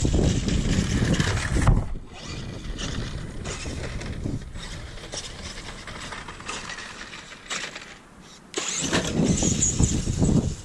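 Radio-controlled Tamiya Super Clod Buster monster truck running across grass on its twin Tamiya Super Sport TZ electric motors, with surges of motor and drivetrain noise. The sound is loud for the first two seconds, quieter through the middle, and loud again about nine seconds in.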